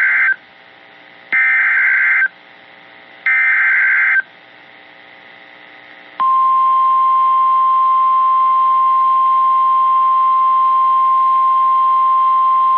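NOAA Weather Radio Emergency Alert System broadcast. It plays the last of one warbling SAME digital header burst, then two more bursts of about a second each. About six seconds in, the steady single-pitch weather radio warning alarm tone starts. Together they are the alert signal that opens a new severe thunderstorm warning message.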